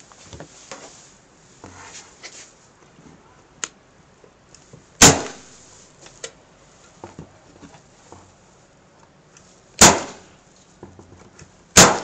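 Corded electric staple gun firing staples into a pine frame: three sharp shots, about 5, 10 and 12 seconds in, with light handling clicks and knocks between them.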